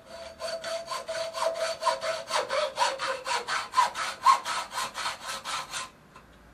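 Hand hacksaw cutting through a thin steel tube clamped in a bench vise, in quick, even back-and-forth strokes that stop about six seconds in.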